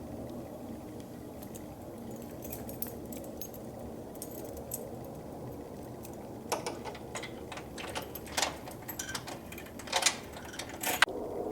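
Low, steady droning rumble of the unexplained sound from the sky, loud enough to make the house vibrate. In the second half, a string of sharp clicks and rattles cuts across it, the loudest near the end.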